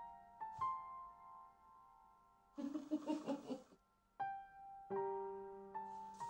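Soft piano music, slow single notes left to ring out. About two and a half seconds in, a burst of rustling noise lasting about a second sounds over it.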